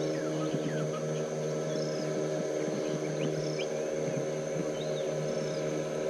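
A steady low drone made of several even tones, with scattered short bird chirps over it.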